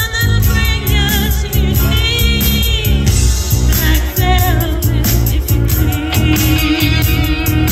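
A woman singing into a handheld microphone over amplified backing music with a steady beat.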